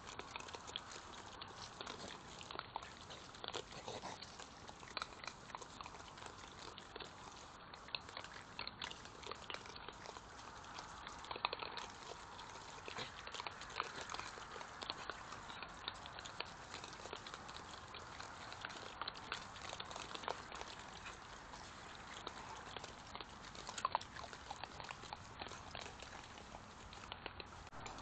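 European badgers feeding, chewing and crunching food picked up from the ground: many small, irregular clicks and crunches.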